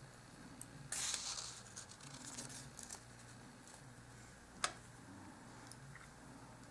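Quiet handling of small paper craft pieces and tools on a tabletop: a brief rustle about a second in, a few faint ticks, and one sharp small click a little past the middle.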